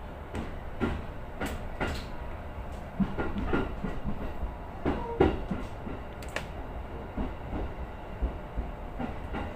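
Electric commuter train running slowly, heard from inside the driver's cab: a steady low rumble broken by irregular sharp clacks and knocks as the wheels run over the track.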